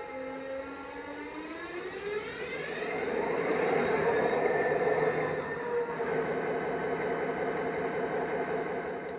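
Diesel-electric locomotive engine revving up, its pitch rising over about three seconds and then holding steady at high power with a faint high whine. It cuts off abruptly at the end.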